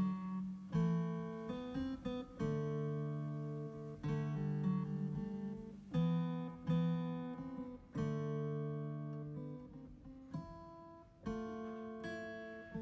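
Background music played on an electronic keyboard with a guitar-like plucked sound: chords struck every second or two and left to ring out.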